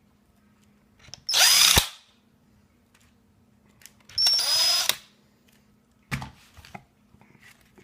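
Power drill run in two short bursts a few seconds apart, each whirring up to speed and winding down, drilling into the calculator's plastic case. A single knock follows near the end.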